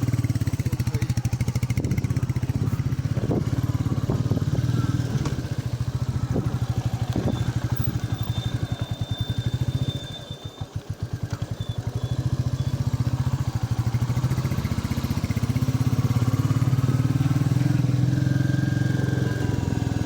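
Royal Enfield Meteor 350's single-cylinder engine running under way. It eases off about halfway through, then picks up again. Just before the drop a thin high whistle from the rear brake sounds for about two seconds.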